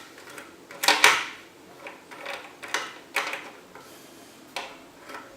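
Clicks and scrapes of a PC's CPU power cable being unplugged from the motherboard and handled inside the case: a handful of short, sharp knocks, the loudest about a second in.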